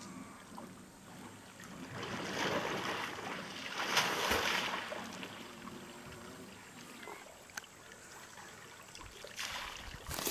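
Water sloshing and splashing as an adolescent African elephant swims in a dam and heaves its body up through the surface, rising to its loudest about four seconds in, with another rush of water near the end as it lifts its head and trunk out streaming water.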